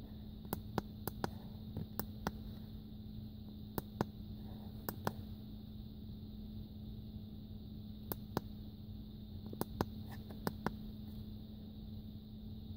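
Plastic buttons of a Konnwei KW806 OBD2 code reader clicking under a thumb, in scattered groups of two or three quick presses, over a steady low hum.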